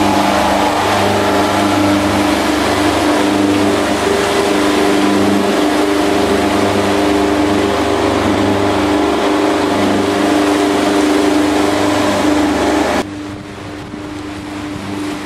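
Houseboat's engine running steadily under way, a low droning hum, over the loud rush of churning wake water. About thirteen seconds in the rushing drops away suddenly while the engine hum goes on.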